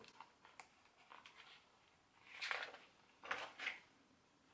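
Paper pages of a hardcover picture book being turned: two faint swishing rustles about halfway through.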